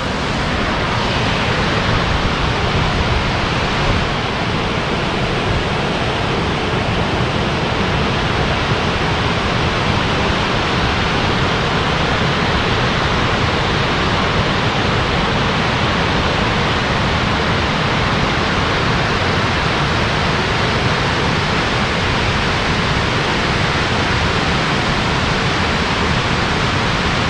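Waterfall rushing: a loud, steady roar of falling water that holds without a break.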